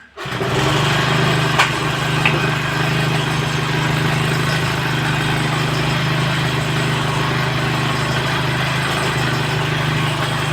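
Small engine of an overhauled grass cutter (brush cutter) catching at once and then running steadily at a low, even speed.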